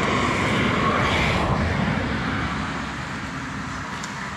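Motorcycle on the road: engine and wind rushing at riding speed, louder for the first two seconds and then easing off.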